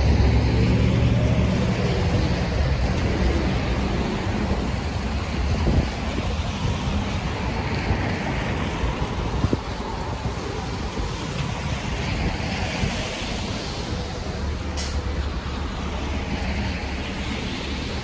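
Street traffic: a heavy vehicle's engine runs close by at first and fades over the first few seconds. A steady low rumble of road noise continues after it.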